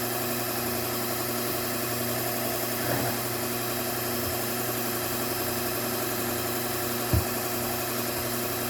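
Bucktool slow-speed belt sharpener running with a steady motor hum, with one short knock about seven seconds in.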